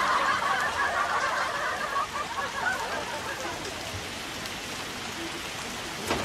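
Heavy rain pouring steadily, with audience laughter fading out over the first couple of seconds.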